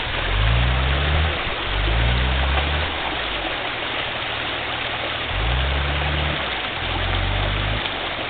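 Off-road 4x4's engine revved in four surges of about a second each, the pitch rising at the start of each and dropping back to idle between. A steady hiss runs underneath throughout.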